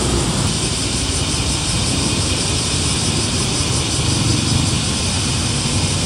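Chorus of cicadas singing steadily as a dense high hiss, over a steady low rumble.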